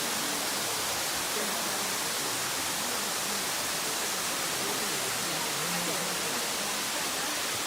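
Steady rushing of a waterfall, an even hiss with no breaks, with faint voices underneath.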